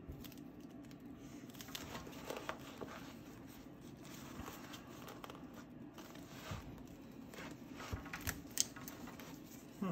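Soft, irregular scratching and rustling of art tools working on a sketchbook's paper pages, with a few light ticks near the end.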